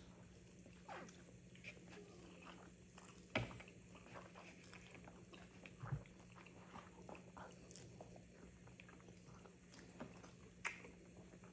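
Faint mouth sounds of two people eating thick black bean noodles: slurping long strands and chewing, with small wet clicks and two sharper slurps, about three and a half seconds and six seconds in.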